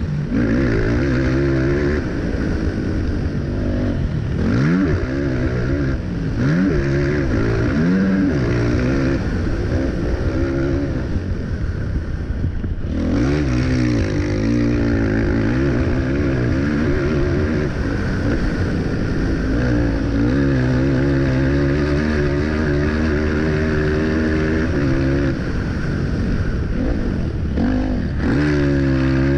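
Racing quad's engine revving hard under full throttle, its pitch repeatedly climbing, dropping back through gear changes, and easing off for corners, heard from a camera mounted on the quad. About halfway through the throttle is briefly chopped and the engine note falls away before picking up again.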